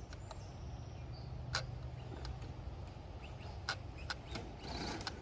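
Team Associated DR10 RC car running over a dirt track some way off: scattered sharp clicks and rattles over a low rumble as its body shakes, growing a little louder near the end.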